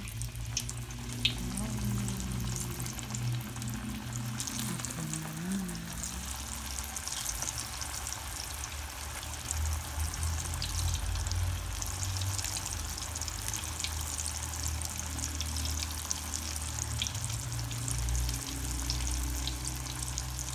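Taro perkedel frying in hot oil in a pan: a steady sizzle with fine crackling and spitting throughout.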